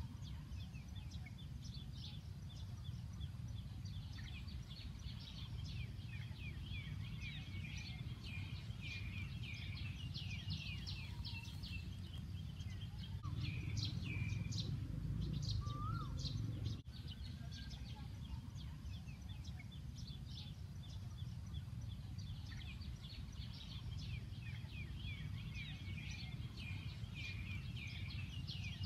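Birds chirping over and over in short, falling calls, over a steady low rumble that swells for a few seconds past the middle.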